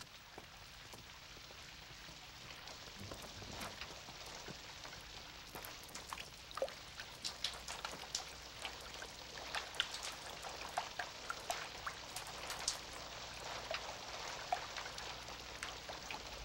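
Rain falling on a clay-tiled roof: a steady hiss with many scattered single drops ticking, growing louder over the first few seconds.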